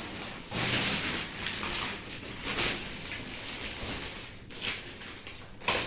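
Rustling of the plastic wrapping on a rolled, vacuum-packed mattress as it is handled and unwrapped, swelling and easing, with a sharp tap near the end.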